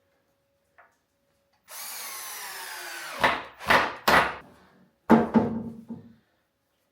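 A small power tool runs for about a second and a half, its pitch sliding slightly, then five sharp knocks on wood follow, the last two ringing briefly as a two-by-one top rail is fitted to a wooden gate.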